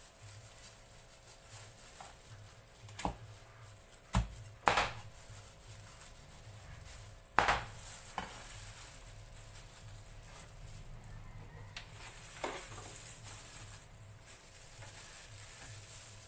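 Chef's knife slicing through roast beef on a wooden cutting board, with a handful of sharp knocks of the blade against the board spread through, one about halfway the loudest.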